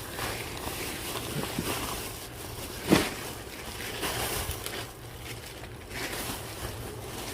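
Rustling and handling of items being rummaged through and unpacked, with a sharper knock about three seconds in.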